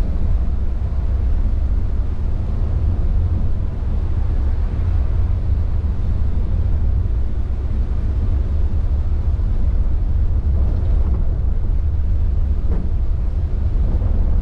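Intercity coach cruising on a wet highway in heavy rain, heard from inside the cabin: a loud, steady low rumble of engine and road noise.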